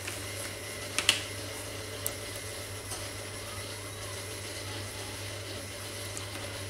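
Steady low hum of room or electrical noise, with a pair of sharp clicks about a second in and a single click about two seconds in.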